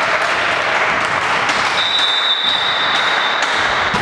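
Clapping and cheering from a small crowd of players and onlookers in a volleyball hall, a steady hiss of noise, with one steady high whistle held for about a second and a half in the middle.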